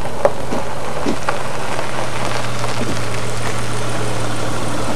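Car engine idling with a steady low hum, under an even hiss, with a few light clicks in the first second and a half.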